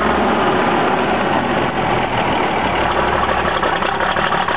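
The engine of a 1952 White WC28 heavy wrecker truck running at low speed as the truck rolls slowly past across gravel, a steady even sound with no change in pitch.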